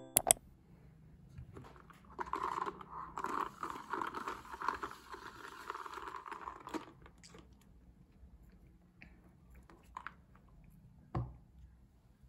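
Close crunching, rustling noise for about five seconds, then a few faint clicks and a single knock near the end as a plastic iced-coffee cup is set down on a wooden coaster.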